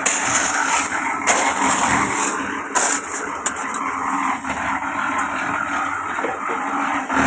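A motor running steadily, with a few sharp knocks on top.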